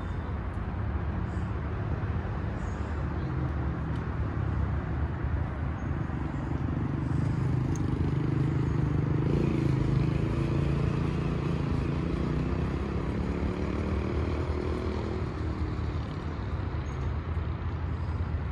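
Street traffic: a steady low rumble, with a passing vehicle's engine hum swelling through the middle and fading away.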